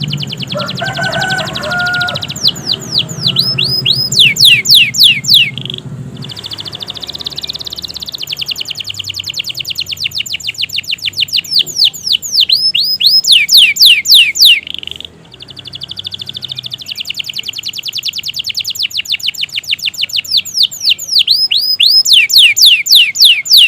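Domestic canary singing a long, non-stop song: fast rolling trills broken by runs of loud, sweeping whistled notes, with a short break a little past halfway.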